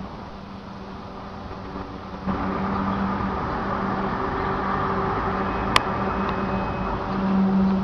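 A steady low droning hum over a rumbling wash of background noise; the noise gets louder about two seconds in, and a single sharp click sounds near six seconds.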